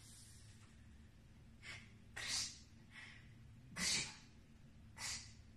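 Five short, faint breathy puffs of air, like someone breathing out sharply or softly hissing, about a second apart.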